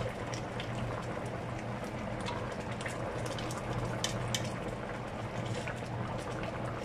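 Fish simmering in a little broth in an enamelled pot: a steady soft bubbling under a low hum. A couple of light clicks of a spoon against the pot come about four seconds in.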